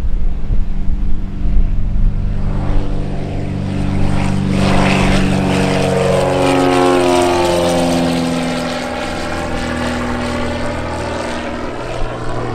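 Britten-Norman Islander's twin propeller engines at climb-out power during takeoff, a steady drone whose pitch drops as the plane passes about halfway through.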